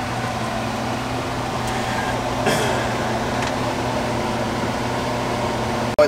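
Steady hum of running machinery, a low drone with a higher tone over it, typical of a fan or air-conditioning unit. A brief clatter sounds about two and a half seconds in.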